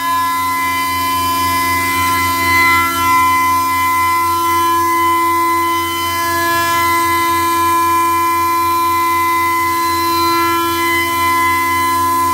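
High-speed CNC milling spindle running steadily and cutting, a loud whine of several fixed tones, some of which swell and fade as the tool's load changes.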